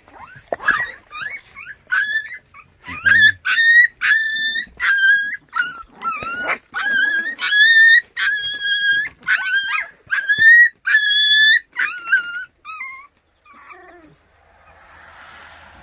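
Young white baekgu puppies whining and yelping over and over, high-pitched calls about one a second that break off near the end.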